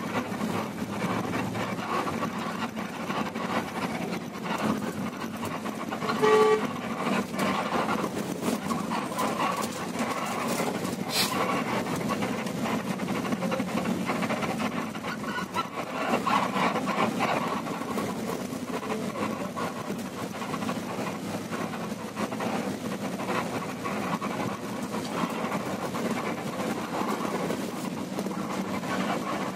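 Cabin noise of a Mercedes-Benz intercity bus under way: steady engine and road rumble heard from just behind the windscreen, with a short horn honk about six seconds in.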